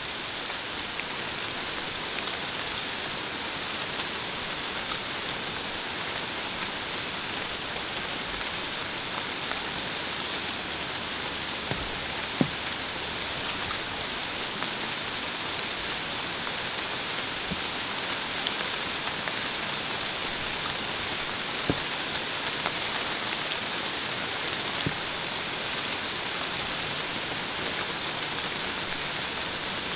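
Steady hiss of noise, like rain, with scattered small ticks and a few sharper clicks, the loudest a little before the middle.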